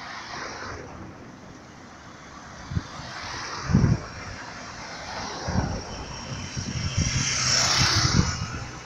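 A car passing close by on the road, its engine and tyre noise swelling to a peak near the end and then falling away. A few short low thumps of wind on the microphone come before it.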